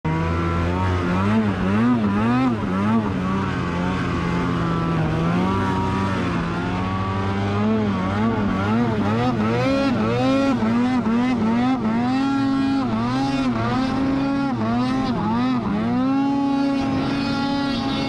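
Polaris RMK 850 two-stroke twin snowmobile engine running hard at around 8,000 rpm while climbing in powder. Its pitch rises and dips rapidly over and over as the throttle and track load change, then holds steadier and a little higher near the end.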